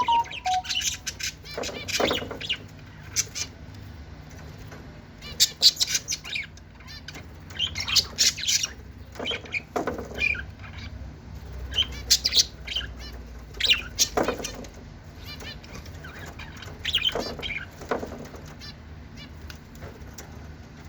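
Lovebirds giving short, shrill chirps and squawks in irregular clusters every second or two, over a faint low steady hum.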